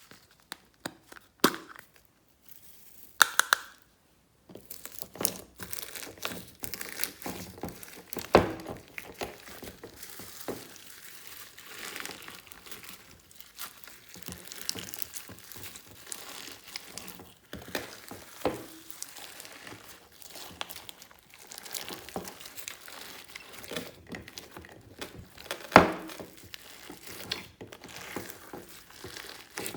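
Glossy slime being squished and kneaded by hands: a crackly run of sticky squelches and small pops, sparse for the first few seconds and then continuous, with a few louder sharp snaps.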